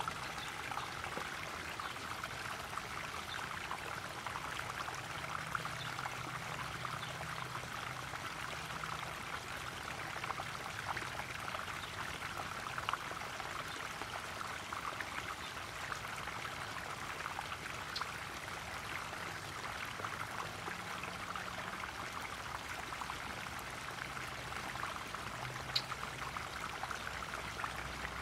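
Garden koi pond waterfall: water pouring and splashing steadily into the pond.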